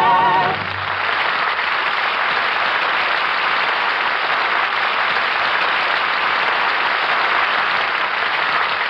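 Studio audience applauding steadily, heard on an old radio transcription recording. The applause takes over as the song's last held note, sung with vibrato, ends about half a second in.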